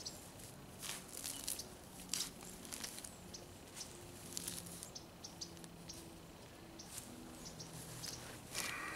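Hand digging in grassy turf: a run of short, irregular scrapes and knocks as soil is loosened and pulled out of a shallow hole.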